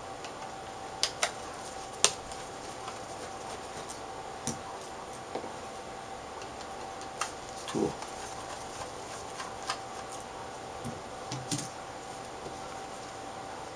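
Scattered light clicks and ticks of a small Phillips screwdriver working a tiny screw out of an LCD panel's metal frame, irregularly spaced, the sharpest about two seconds in. A faint steady hum runs underneath.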